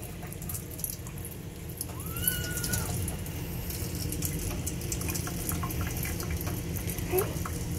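Thin stream of warm water running from a kitchen faucet into a stainless steel sink, splashing over hands and a kitten being massaged, with one short kitten mew about two seconds in.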